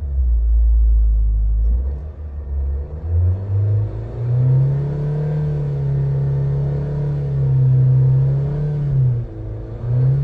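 Nissan car engine being revved with the accelerator pedal: a deep low drone at first, then the engine speed rises about three seconds in and is held steady at a higher pitch for about five seconds before dropping back, with a short blip near the end.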